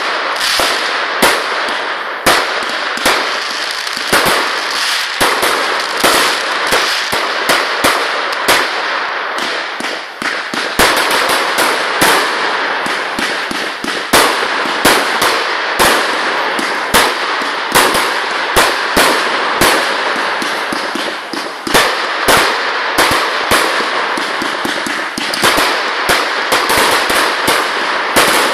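Fireworks going off in quick succession: sharp bangs about once a second over a continuous dense crackle.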